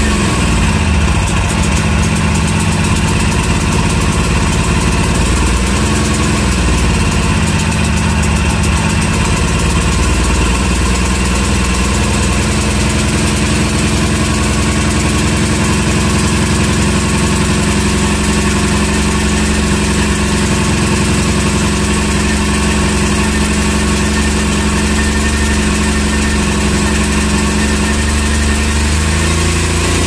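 Small engine-driven portable generator running steadily, with its pitch sagging and recovering briefly about six seconds in.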